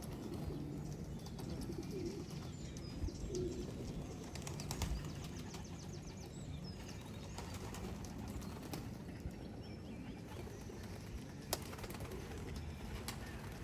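Racing pigeons around the loft, cooing and flapping their wings, with a few sharp clicks.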